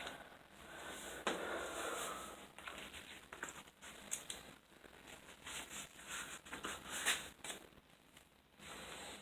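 Football receiver gloves being pulled onto the hands, with irregular fabric rustling and short tearing rips of the Velcro wrist straps being opened and fastened.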